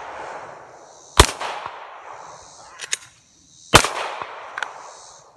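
Two pistol shots about two and a half seconds apart, each followed by a long echo across the range, with a few fainter sharp cracks between and after them.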